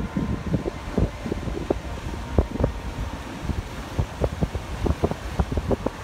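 Wind buffeting the microphone: an uneven low rumble broken by frequent short, irregular pops.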